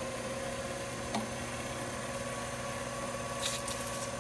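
Mini metal lathe running at a steady speed with a steady whine while a drill bores a steel blank. About three and a half seconds in, two short hisses from an aerosol spray can aimed at the cut.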